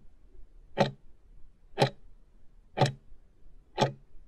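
Clock-tick countdown sound effect: four sharp ticks, one each second, as the answer timer runs out to zero.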